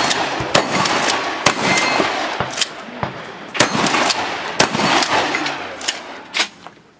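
Shotgun firing a string of about seven shots, roughly a second apart, each shot followed by a reverberating echo.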